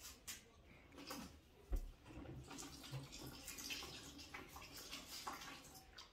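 Hands being washed under the tap of a plastic water bucket, water running and splashing into a plastic basin. A short dull knock comes just before two seconds in.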